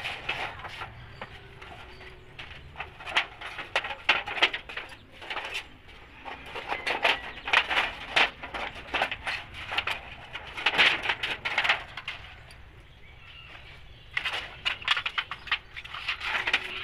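Scissors cutting through a thin, rusty galvanised-iron sheet, in several bursts of rapid crunching snips with short pauses between.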